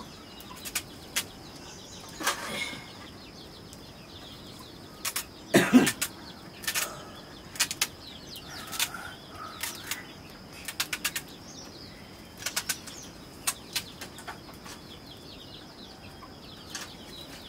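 A knife slicing through pieces of raw pumpkin, with short, sharp, irregular cuts and snaps as the rind and flesh give way. There is a louder knock about six seconds in.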